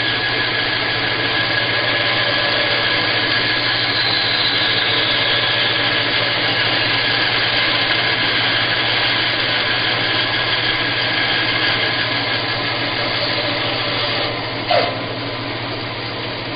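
Bandsaw running steadily with a constant motor hum, its blade cutting a canary wood blank. About fourteen seconds in the sound drops quieter, followed by a short knock.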